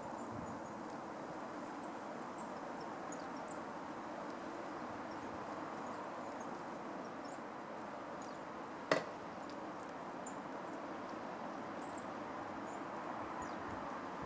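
Steady outdoor woodland background with faint, short, high-pitched bird calls scattered throughout. One sharp knock about nine seconds in, from the red squirrel at the wooden feeder box as it pushes in under the lid.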